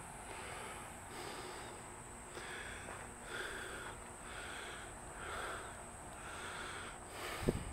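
A person breathing heavily close to the microphone, about one breath a second, over a steady high insect hum. A single thump near the end.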